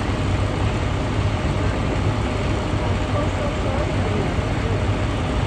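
Steady low rumble of an idling vehicle engine, with faint voices in the background.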